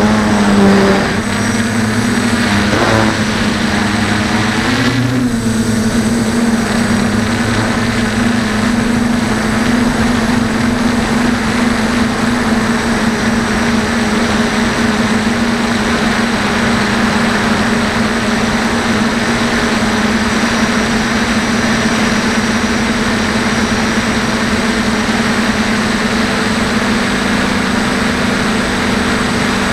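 DJI F450 quadcopter's four brushless electric motors and propellers buzzing in flight, heard from the onboard camera. The pitch wavers with throttle changes for the first few seconds, then holds steady, over a rush of wind noise.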